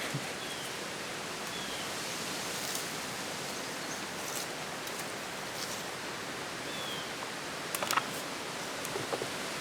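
Steady rushing background noise with a few faint, short, high falling chirps. A couple of sharp clicks come about eight seconds in.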